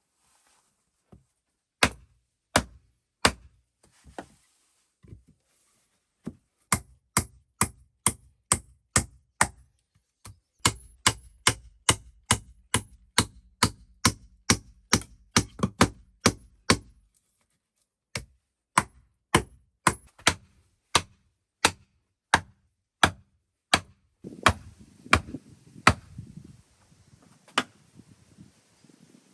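A hand tool striking wood over and over: sharp single blows, about one to two a second, in several runs with short pauses, and some scraping and rustling near the end.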